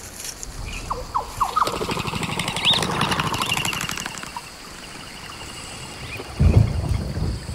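Rainforest ambience: birds giving short sweeping chirps and one rising whistled call, over a creek's running water. Low rumbling bursts, like gusts or water surging, come in near the end and are the loudest part.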